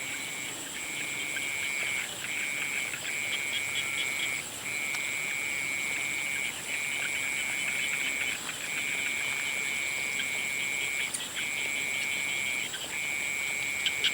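Frogs calling at dusk: long, steady high-pitched trills, each held a second or two with brief breaks between, and quick pulsed calls at the start and near the end, over a constant very high thin drone.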